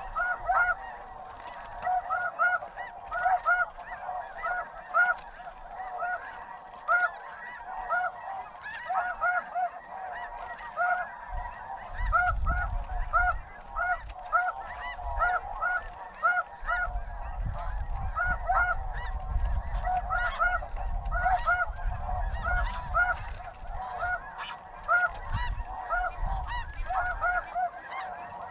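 Snow geese calling: a dense, unbroken chorus of short, high honks, many overlapping.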